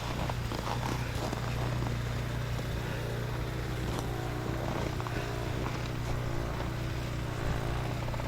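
A vehicle engine idling, a steady low hum with no change.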